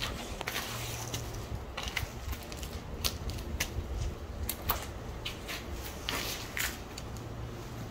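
Irregular footsteps scuffing and crunching on grit and debris over a concrete floor, roughly one a second, over a low steady rumble.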